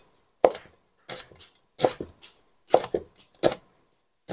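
Chinese cleaver slicing fresh chili peppers on a wooden chopping board, with a sharp knock of the blade hitting the board about every three quarters of a second.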